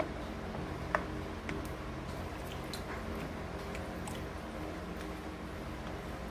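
A silicone spoon stirring chicken pieces through a thin tomato sauce in a stainless steel pan: soft wet squelches with a few light clicks, the sharpest about a second in, over a steady low hum.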